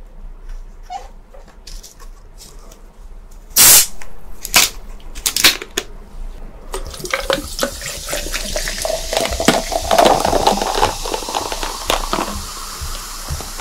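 Close-miked eating and food-handling sounds from a meal of noodles and fried chicken. Soft clicks, then a few sharp loud bursts about four to five and a half seconds in, then from about seven seconds a dense, continuous wet crackle.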